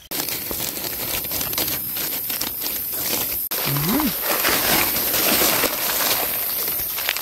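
Dry fallen leaves crunching and rustling underfoot and under hands as someone walks through leaf litter and crouches down, a dense crackle throughout. A brief voiced sound rises and falls in pitch about four seconds in.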